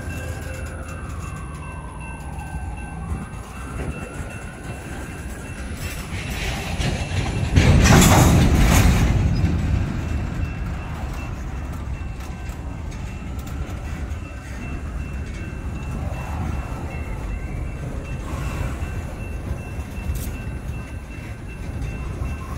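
Freight train of boxcars rolling past at close range: a steady low rumble of wheels on rail, with faint squeals rising and falling in pitch during the first few seconds. A louder rush of noise about eight seconds in lasts a couple of seconds.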